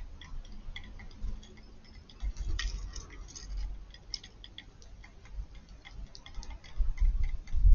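Eurasian tree sparrows pecking at food on a hard surface: an uneven scatter of quick, light ticks.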